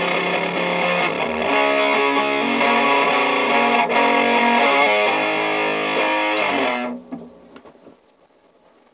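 Electric guitar, tuned down a half step, playing a riff of power chords and their variations, with several chord changes. About seven seconds in it is stopped sharply and only a faint ring is left.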